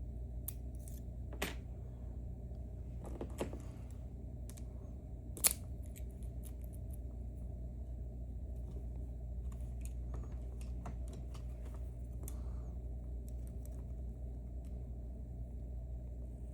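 Small metal tools clicking and scraping on a Mauer NW4 dimple lock being taken apart, with a few sharper clicks in the first six seconds, the loudest about five and a half seconds in, as the tools work at the lock's stiff C-clip. A steady low hum runs underneath.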